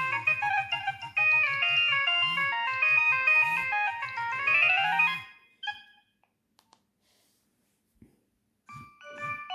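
Nokia 3120 polyphonic ringtone playing: a synthesized melody over a repeating pulsed bass line that stops about five seconds in. After a few seconds of near quiet with a couple of faint clicks, the next ringtone begins near the end with bell-like notes.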